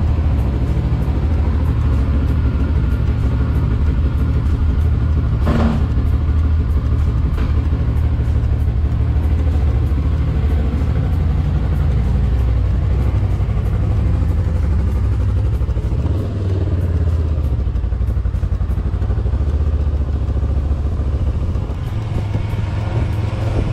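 Kawasaki Versys motorcycle engine running with a steady low rumble, a single sharp knock about five seconds in; near the end the bike is under way, riding slowly along a street.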